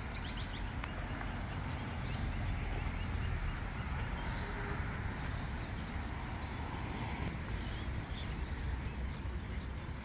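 Outdoor park ambience while walking: a steady low rumble of wind, scattered short bird chirps, and the walker's footsteps on grass and a dirt path.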